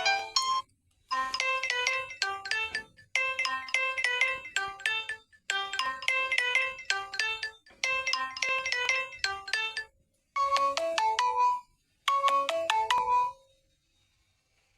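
Samsung Galaxy J5 Prime alarm tone playing: a short melody of bell-like notes repeated about every two seconds. A different tone ends just before a new one begins about a second in, and the tone stops about a second and a half before the end.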